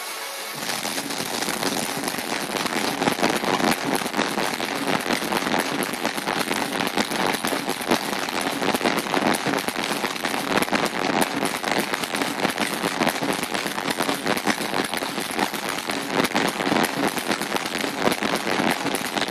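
Large arena crowd applauding and cheering, a loud, dense crackling noise with no music. It sets in sharply about half a second in and stays steady after that.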